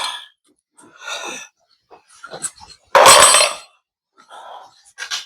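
Handling noise of small metal securing clips being picked up: light clinks and rustling, with one short, loud rushing noise about three seconds in.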